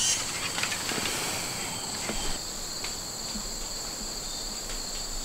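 Steady insect chorus of crickets, a continuous high-pitched trill on two steady pitches, with a few faint clicks.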